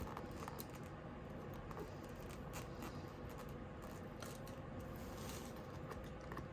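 Faint handling noises from unboxing a shrink-wrapped box: scattered light clicks and scratches over a steady low hum.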